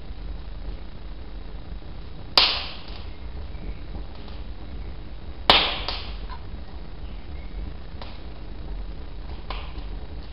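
Carbon-steel striker struck against a flint to throw sparks: two sharp strikes about three seconds apart, then a couple of fainter ones near the end.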